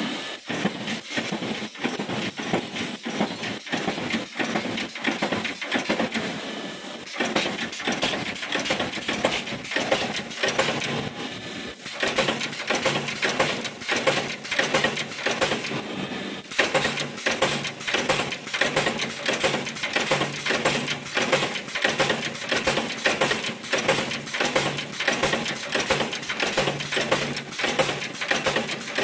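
Steel stud roll forming line running, its punch-press die stamping the steel strip with rapid, regular metallic clanks over a low machine hum.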